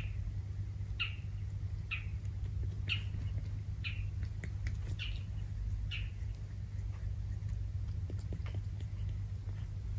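An animal's short high call, repeated about once a second seven times and stopping about six seconds in, over a steady low rumble.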